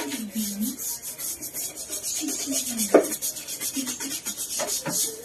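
Scrubbing with a cleaning rag on an e-bike, in quick repeated back-and-forth rubbing strokes.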